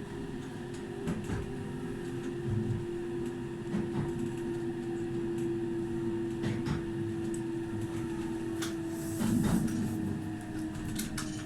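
Meitetsu 2000 series electric train running, its motor whine a steady tone sinking slowly in pitch as the train eases its speed. Sharp clacks from the wheels and car body come every second or so, with a louder noisy patch about nine seconds in.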